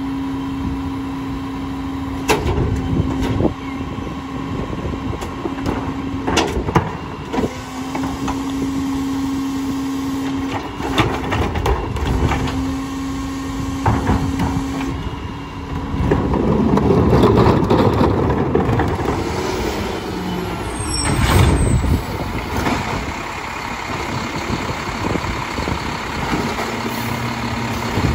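Rear-loader garbage truck idling with a steady hum while bags and carts knock at the hopper. About sixteen seconds in it runs louder for a few seconds, the engine revving as the packer cycles to compact the load.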